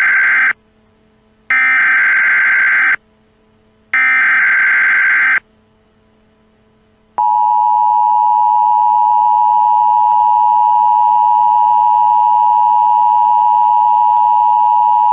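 Telephone line tones: three beeps, each about a second and a half long with a second's gap between them, then a single steady high tone. They cut off the speaker's big reveal as if the line had gone dead.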